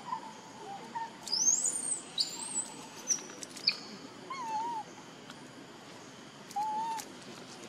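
Forest birdsong: high whistles sweeping upward and short chirps in the first half, then a few faint, wavering lower calls.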